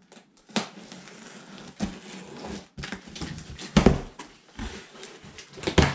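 A cardboard shipping box being handled and opened: irregular knocks and scraping rustles, with two louder thumps, one about four seconds in and one near the end.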